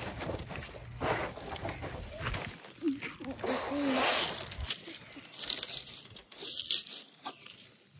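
Rustling and crinkling with scattered short crunches, uneven in loudness, and a brief hum of a voice about three seconds in.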